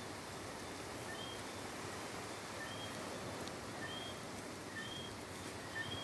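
Night chorus of small chirping creatures: short high whistled chirps at two pitches, about one a second, answering one another over a steady hiss of the sea.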